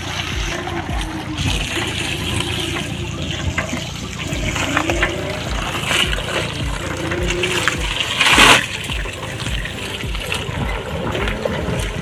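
Tyres of a heavily loaded electric rickshaw rolling through muddy puddles, water splashing and sloshing, with one louder splash about eight seconds in.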